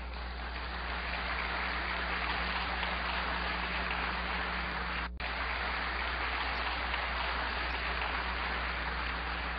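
Large audience applauding steadily, swelling over the first second, with a brief break about five seconds in.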